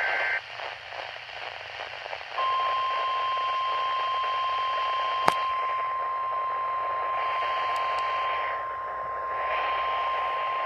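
A radio tornado-warning alert: the tail of a warbling two-pitch SAME data burst, about two seconds of radio static, then the single steady 1050 Hz weather-radio warning alarm tone held for about nine seconds over hiss. One sharp click comes about halfway through.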